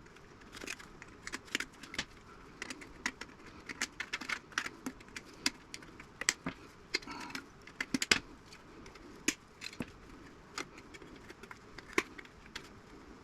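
Irregular sharp clicks and metallic clinks of hand tools working in a 1950s tube radio's steel chassis: wires being snipped and small soldered metal parts being worked loose. The clicks come thick for the first half, then more sparsely.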